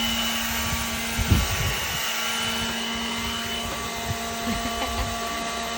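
Motor of a yard-cleaning machine running steadily with a constant whine over a rushing noise, with a few low thumps of handling, the loudest about a second in.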